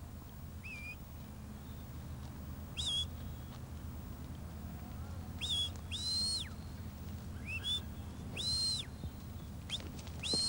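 A shepherd's whistled commands directing a working sheepdog: a series of short, high whistle notes, some rising quickly, with two longer held notes in the middle.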